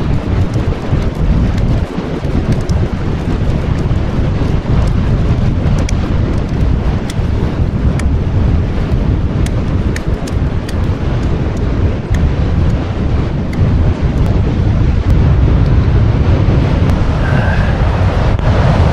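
Strong wind buffeting the microphone, a loud steady rumble, with many faint sharp clicks scattered throughout.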